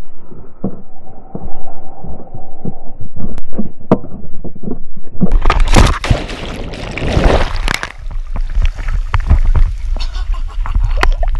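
A person falling from a cliff after a back flip, with muffled rushing noise and knocks on the action camera. About five seconds in comes a sudden loud back-first slap into water, then churning and bubbling while underwater, then splashing on resurfacing.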